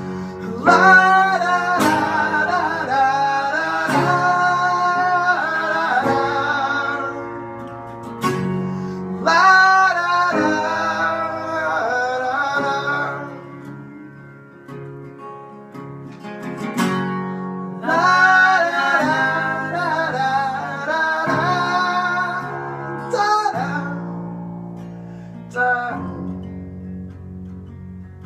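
A small band playing a song live: strummed guitars with male singing in several phrases, dropping to guitar alone between phrases and near the end.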